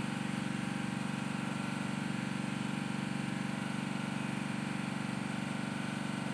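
Small engine running steadily at a constant speed: the machine used to clean out a newly drilled borehole.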